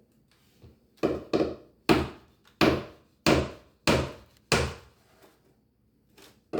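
A hammer driving small nails into a wooden stair nosing: about seven sharp blows at a steady pace, then a pause and one light tap near the end.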